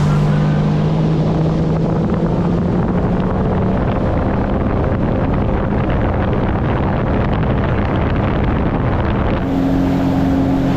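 Sea-Doo FishPro Trophy jet ski running at speed: a steady engine note under a rush of wind and water spray. About a second before the end the sound changes abruptly to a different, higher engine note.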